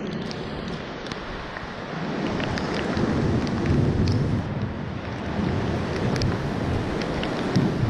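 Storm wind and rain, with a low rumble that builds about two seconds in and stays loud, and scattered sharp ticks of drops.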